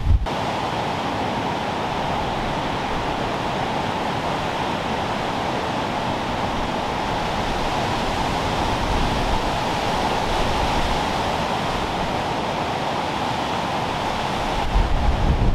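Steady rush of a tropical storm: wind-driven heavy rain over floodwater, an even noise with no gusts. Just at the start, low wind buffeting on the microphone cuts off.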